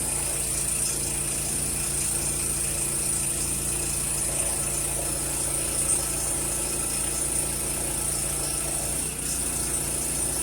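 Small gasoline engine of a homemade mini backhoe running steadily at idle, turning its hydraulic pump, just after its first start.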